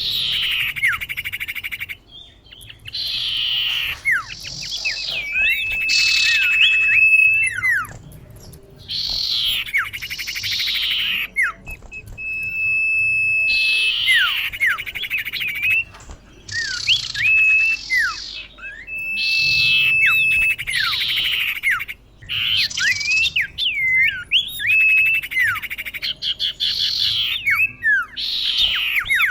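Female common iora (cipoh) calling to attract a male, in phrases repeated every two to three seconds. Each phrase is a buzzy, rasping burst with a held whistle and quick down-slurred notes.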